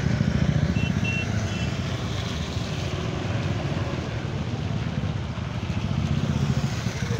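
Motorcycle engine idling, a steady low rumble, with three short high beeps about a second in.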